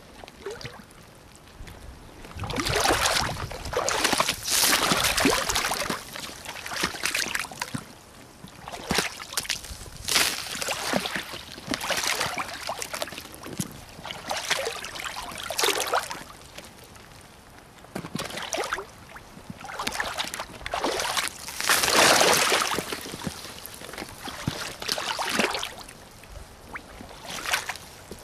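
Rubber boots wading through shallow muddy water, making irregular splashing and sloshing steps, with louder splashes a few seconds in and again past the middle.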